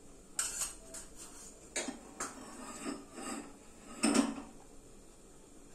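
Steel kitchen utensils clinking and knocking: a spoon against a small steel cup and a small pan. There are about six separate clinks, the loudest about four seconds in.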